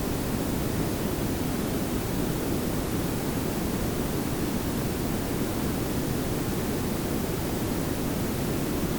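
Steady synthetic pink and brown noise layered together: an even hiss over a low rumble, unchanging throughout.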